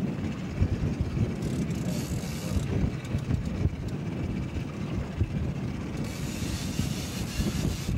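Wind buffeting the microphone on an open boat, a steady low rumble, with two stretches of higher hiss: one about a second and a half in, and another near the end.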